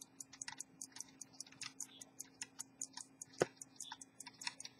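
An antique pocket watch movement ticking, its escapement beating in a rapid, even rhythm of about five to six ticks a second, with one louder click about three and a half seconds in. A faint steady hum lies underneath.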